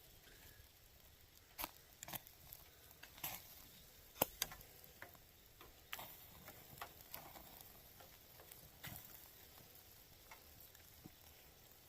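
Fire in a small portable grill crackling faintly, with irregular sharp pops, the loudest about four seconds in.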